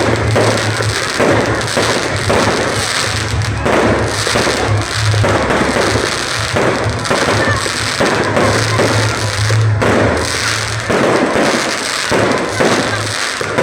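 Fireworks bursting and crackling in rapid, continuous succession, over loud music.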